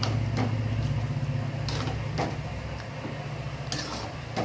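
Steady low machine hum with a few sharp light clicks and knocks scattered through it.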